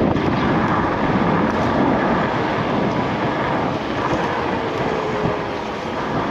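Steady rush of wind and road noise on the camera microphone while riding a Yume Hawk Pro 60V electric scooter.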